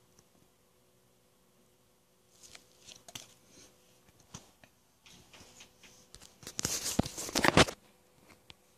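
Paper and plastic packaging rustling and crinkling in a hand, in several short bouts with a few sharp clicks. The loudest burst comes about seven seconds in.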